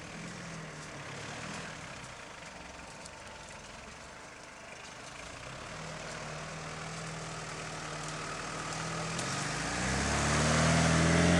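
Suzuki 4x4's engine running at low revs as it creeps down a steep slope through thick bushes, growing steadily louder as it nears, with foliage brushing over the bodywork.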